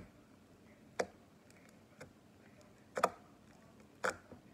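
Slime with foam beads being pressed and poked by a thumb, giving four sharp pops about a second apart.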